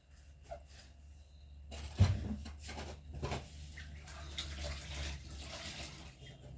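Running water with a few scattered knocks over a steady low hum; the water starts a little under two seconds in, and the loudest knock comes about two seconds in.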